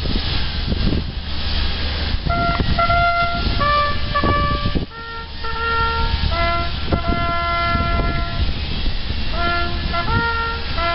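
Bugle call played slowly on a brass instrument as the RAF ensign is lowered: a series of long held notes starting about two seconds in, with a short break about five seconds in. A steady low rumble runs underneath.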